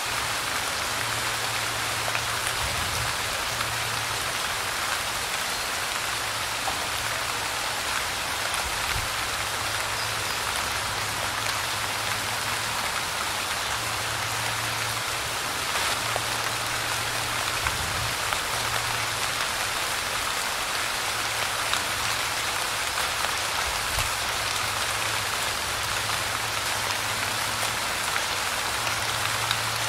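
Light rain falling steadily: an even, dense patter with scattered individual drops ticking out of it.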